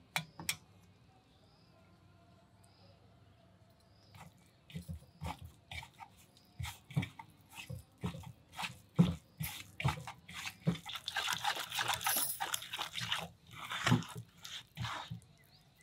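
A hand squishing and mixing wet masala paste in a small steel bowl: irregular squelches and clicks that start a few seconds in and are densest toward the end.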